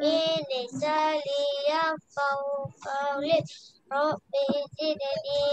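A high child's voice chanting a melodic recitation, in phrases of long held notes broken by short pauses.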